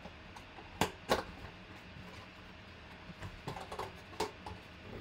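Cardboard basketball box being opened and handled: two sharp snaps about a second in, then scattered light taps and rustles as the ball is lifted out.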